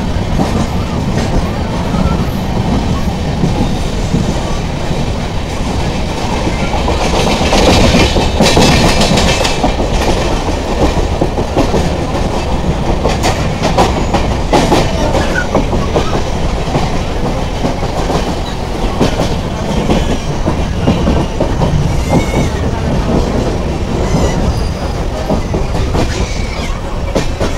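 Deccan Express coach wheels running on the track, heard at an open coach door: a steady rumble with the clack of wheels over rail joints. It grows louder for a couple of seconds about eight seconds in.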